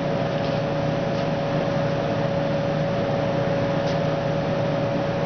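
Steady mechanical hum of lab room equipment, with a constant mid-pitched tone over a lower drone, and a few faint ticks.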